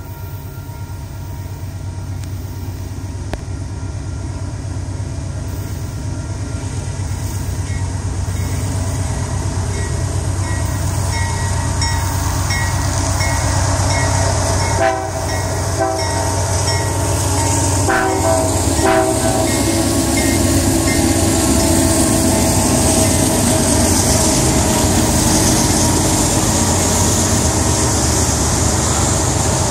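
Diesel freight train approaching and passing at speed, the locomotives' engine rumble growing steadily louder as they near. Short blasts of the train horn sound a few times about halfway through.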